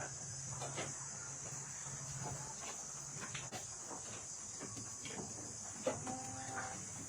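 Steady high-pitched chorus of crickets or similar insects, with faint scattered ticks and a short pitched animal call about six seconds in.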